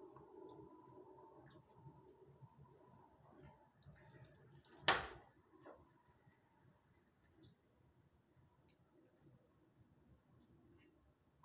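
Crickets chirping steadily at night: a high, evenly pulsed trill that carries on without a break. A single sharp knock stands out about five seconds in.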